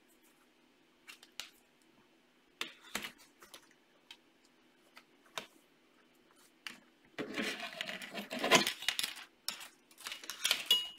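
LEGO Mindstorms plastic pieces clicking and rattling as a power bank and support parts are handled and pressed into the robot's body: scattered single clicks at first, then a denser stretch of clattering about seven seconds in and again near the end.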